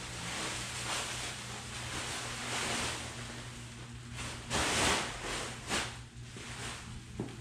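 Packaging being handled as a large shipping box is unwrapped: rustling and crinkling in uneven swells, loudest about halfway through, over a steady low hum.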